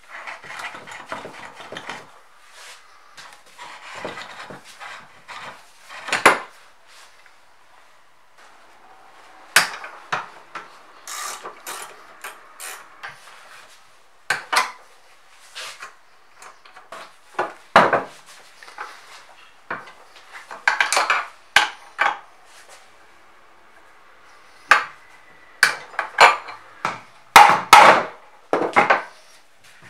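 Metal parts of a Kity 652 mortiser's sliding table being taken apart by hand: irregular clanks and knocks of steel rods and cast-metal pieces against each other and the wooden workbench, with some scraping.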